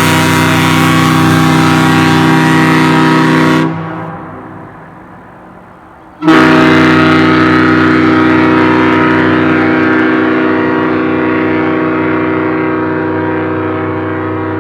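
Kahlenberg T4 triple-chime bronze ship horn sounding a deep chord in two long blasts: the first cuts off sharply a few seconds in, and after a pause of about two and a half seconds the second starts abruptly and is held.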